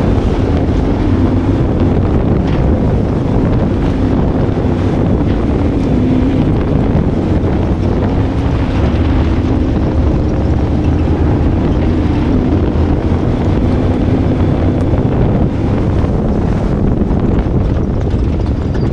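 Rallycross car engine running hard on a dirt course, its pitch wavering through the corners, over steady tyre and dirt noise from under the car.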